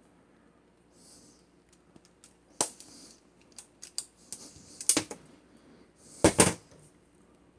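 Cutter jaws of a wire stripper snipping through 14-2 house wiring cable: a string of sharp clicks and snaps, the loudest pair about six seconds in.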